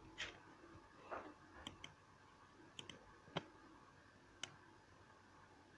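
Faint computer mouse clicks, about eight scattered single clicks and quick pairs.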